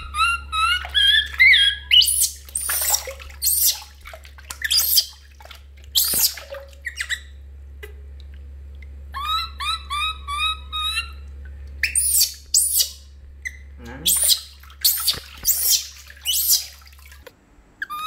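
Baby macaque crying while being bathed: runs of quick, rising chirping cries alternate with loud, shrill screams, with short pauses between. A low steady hum underneath stops near the end.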